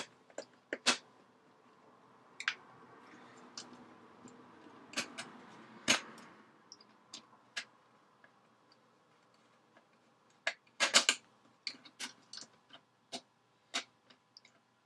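Sharp small clicks and light scraping from D-sub cable plugs being pushed into the sockets on the back of a JCS900 digital readout and their fastening screws turned. The clicks are scattered and irregular, with a faint rustle of handling between about two and six seconds in and a quick cluster of clicks about eleven seconds in.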